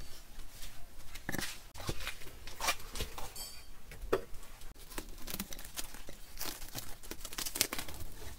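Plastic film crinkling and rustling in a run of short, irregular crackles and tearing noises, from cling film and plastic packing sheets being handled.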